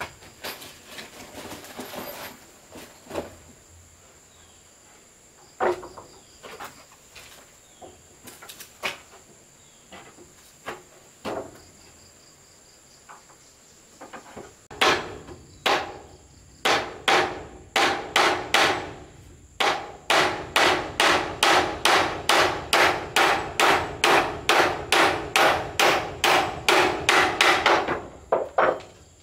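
Hammer striking wood: a few scattered knocks, then from about halfway a fast, even run of blows, about two to three a second, each with a short ring. A steady high insect drone runs underneath.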